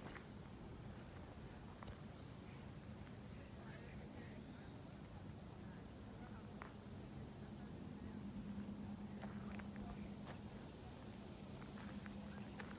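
Faint cricket chirping, a steady run of about two chirps a second, over a low hum that swells about two-thirds of the way through.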